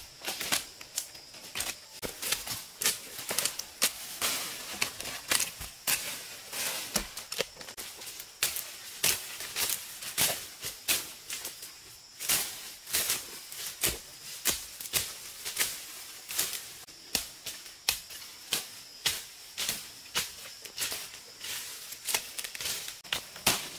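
Crisp snapping and crackling of twigs, dry leaves and fern stems, several sharp snaps a second, as undergrowth is pulled up and trodden through. A faint steady high tone runs behind it.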